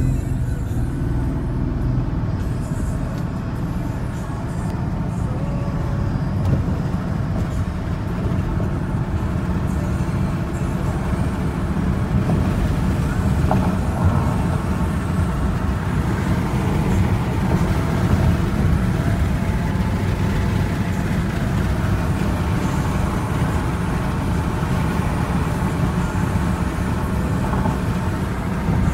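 Steady cabin noise inside a 2009 Bentley Flying Spur cruising at about 55 mph: a low drone from the twin-turbo W12 engine at around 2,000 rpm, mixed with tyre and road noise.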